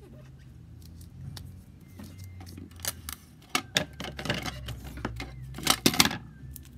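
Clear sticky tape being pulled off a plastic Scotch tape dispenser and torn, with handling of the dispenser: a run of crackly rips and clicks starting about halfway through, loudest near the end.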